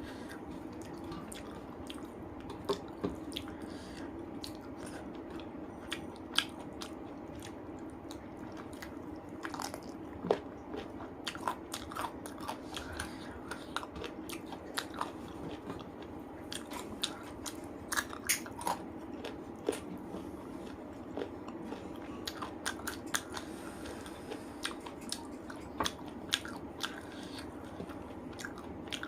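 Close-up chewing and mouth sounds of a person eating rice and spicy chicken curry: irregular wet smacks and sharp clicks, several a second at times, over a steady low hum.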